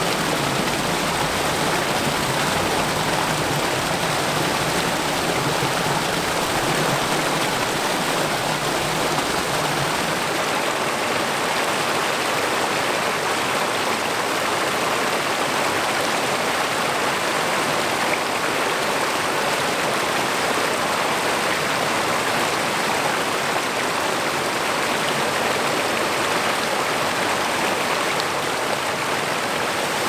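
Rushing water of a woodland stream and its waterfalls, a steady, dense hiss with no breaks.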